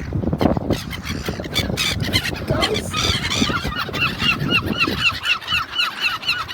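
A waterbird calling in a fast, even run of short honking notes, about four a second, starting about halfway through, after a few seconds of rustling and knocks.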